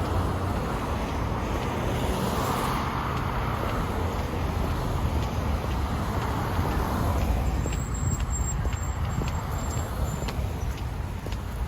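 Road traffic, with a vehicle passing by that swells and fades over a few seconds, over a steady low rumble.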